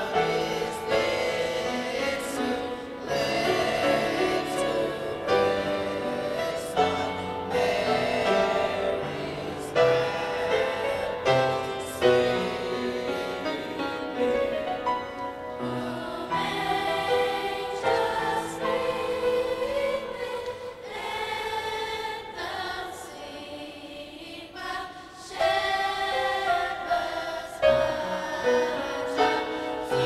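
Youth choir singing in parts with upright piano accompaniment, softening for a few seconds about three quarters of the way through.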